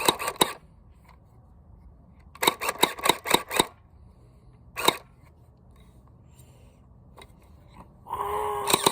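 Battery-powered Splatter Ball gel blaster firing in full-auto bursts of rapid shots, about six or seven a second. There is a short burst at the start, a second burst of about eight shots around two and a half seconds in, and a single shot near five seconds. Near the end the motor whines up and a fast, continuous stream of shots begins.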